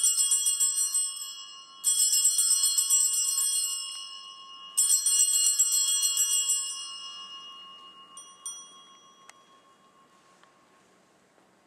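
Altar bells, a cluster of small brass sanctus bells on one handle, shaken in three swift rings: the first is already sounding, the next come about two and five seconds in, each jangling and then dying away, followed by two light clinks. This is the bell signal at the elevation of the host after the consecration.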